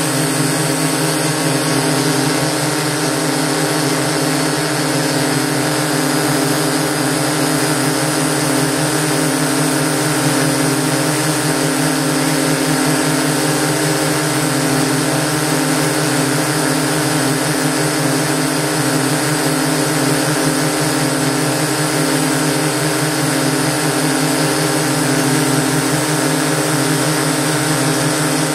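DJI S800 hexacopter's six electric motors and propellers running in flight, heard from on board the aircraft. It is a steady buzzing whine with several constant pitches over a rushing hiss, unchanging throughout.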